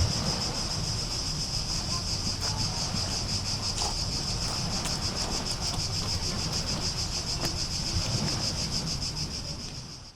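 A steady, shrill chorus of summer insects, with rapid even pulsing, over a low rumble of wind or distant surf; the sound fades out near the end.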